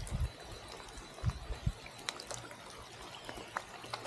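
Spring water trickling and flowing steadily, with scattered small drips. A few low thumps come at the start and again around a second and a half in.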